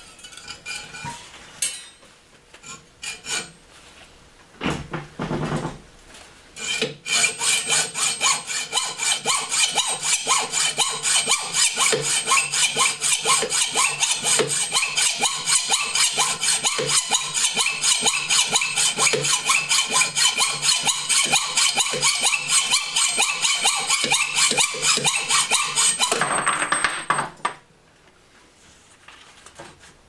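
Hand hacksaw cutting through the half-inch slug of metal left in the middle of a part-off groove on a lathe-turned steel shaft, separating the cut-off end. Steady, rapid back-and-forth strokes start about seven seconds in and stop abruptly near the end.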